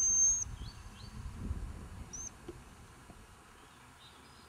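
Gundog handler's whistle: one long, steady, high blast that stops about half a second in, then a short peep about two seconds in. Faint bird chirps can be heard alongside.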